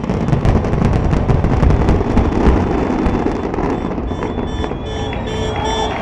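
Fireworks finale barrage: a dense, continuous rattle of overlapping bangs and crackles, heaviest in the middle. Near the end the barrage thins and short repeated horn-like tones sound over it.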